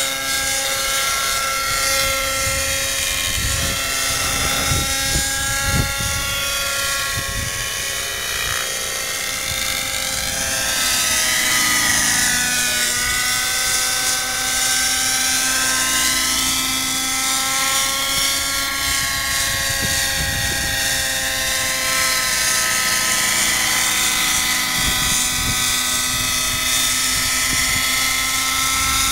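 X-Cell 90 model helicopter in flight: its two-stroke glow engine and rotors make a steady high whine overhead. The pitch wavers up and down as it manoeuvres, and it gets a little louder from about eleven seconds in.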